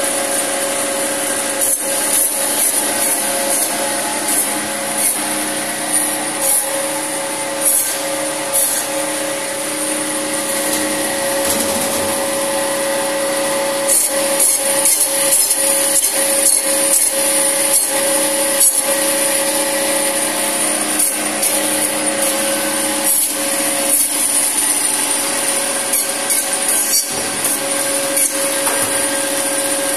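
La Minerva electric meat band saw running with a steady hum and high whine, its blade rasping in short, repeated strokes as bone-in mutton is pushed through and cut into cubes.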